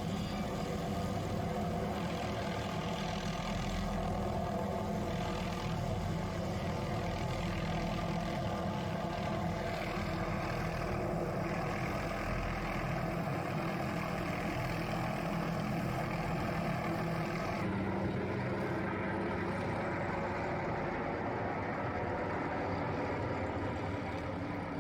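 Helicopter running steadily overhead while working an aerial tree-trimming saw. The engine and rotor give a continuous drone, and about 18 seconds in the sound turns duller as its higher part drops away.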